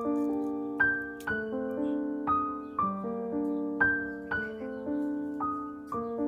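Slow background piano music: a gentle melody of struck notes that ring and fade over held chords.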